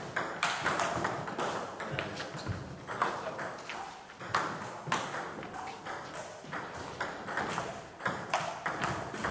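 Table tennis ball clicking quickly back and forth off the bats and the table in rallies, with short pauses between points.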